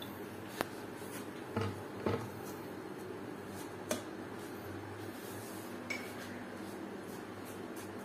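Kitchenware knocking and clinking: a blender jar and a metal mesh strainer touching against a clay pot while green spiced water is strained, about five short sharp knocks spread over several seconds above a steady background hum.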